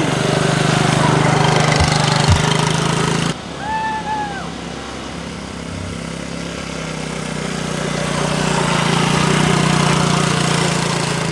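Small three-wheeled ATV's engine running steadily while ridden at low speed. The sound breaks off abruptly about three seconds in, then picks up again and grows louder near the end. A brief high voice calls out about four seconds in.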